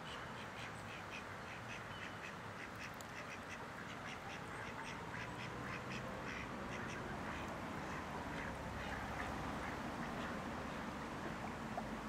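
Black swan cygnets peeping in rapid runs of short, high calls, several a second, thinning out in the second half, over the steady rush of the stream.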